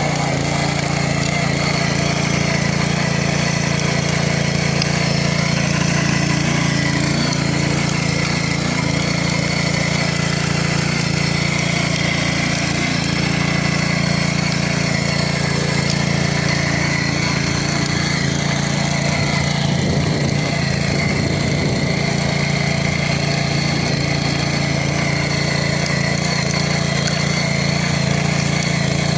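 Antrac GX 200 rotary tiller's single-cylinder four-stroke petrol engine running steadily.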